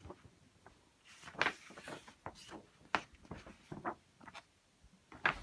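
A paper fold-out insert and cardboard record packaging being handled and folded: scattered soft rustles and light taps at an irregular pace, the strongest about one and a half and three seconds in.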